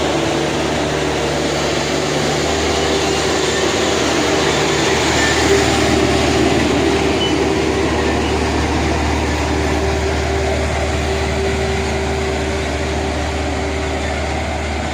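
Road roller's diesel engine running steadily at a constant speed, a continuous low hum with an even mechanical clatter over it.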